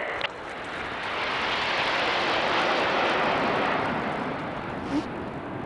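A formation of BAE Hawk jet trainers, each with a single turbofan, flying past. The jet noise swells to a peak about halfway through, then fades as the formation moves away.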